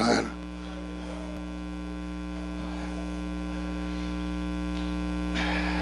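Electrical mains hum in the sound system: a low, steady hum with several steady tones stacked above it, slowly growing louder.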